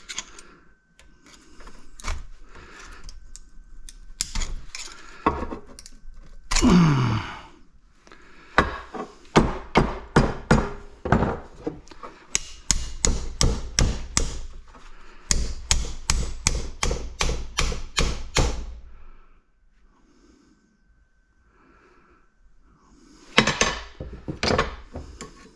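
Hammer blows on a scrap faucet's metal body, striking to knock the brass fitting off the cast aluminum. Three runs of sharp strikes come at about three a second, with scattered knocks and clatter before and after them.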